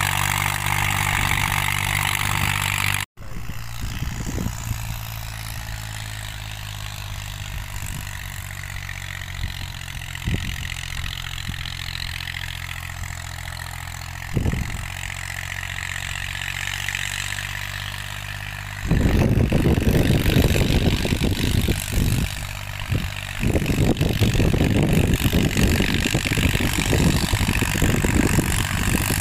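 Deutz-Fahr tractor's diesel engine running steadily while it pulls an implement across a field, with a brief dropout about three seconds in. From about two-thirds of the way through, a louder rough low rumble with short breaks comes in over the engine.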